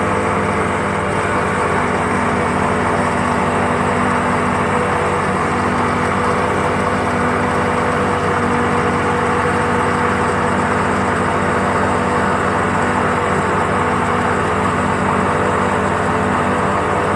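Motorboat engine running steadily at cruising speed, with the rush of the churning wake behind the stern.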